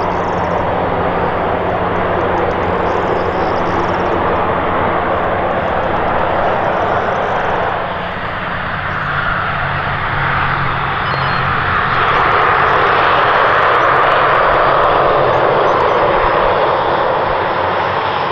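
Twin turboprop engines and propellers of an ATR 72-500 airliner during its landing rollout: a steady low propeller drone under a rushing hiss. The sound grows louder about two-thirds of the way through.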